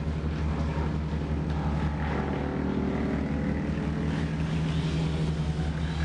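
Tree-removal machinery running: a steady, low engine drone, with its pitch shifting up and down in the middle.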